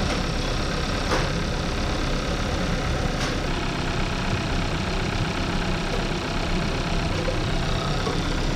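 2014 Kia Forte's 2.0 L GDI four-cylinder engine idling steadily and smoothly, no longer misfiring now that cylinder 1 has a new ignition coil. Two faint clicks at about one and three seconds in.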